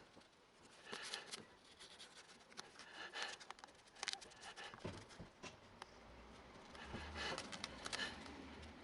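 Faint, scattered clicks and light scraping, like small objects being handled. A low hum joins about five seconds in.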